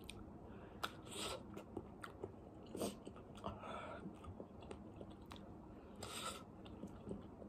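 Faint close-up chewing, with short mouth smacks and clicks scattered throughout and a bite into a crab ball on a fork near the end.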